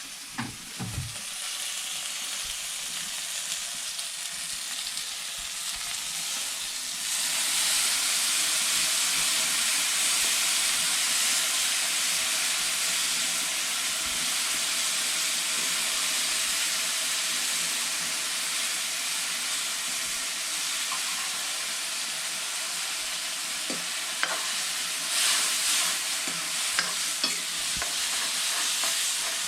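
Potato curry frying in hot oil in a pan: a steady sizzle that gets louder about a quarter of the way in, with a few light taps near the end.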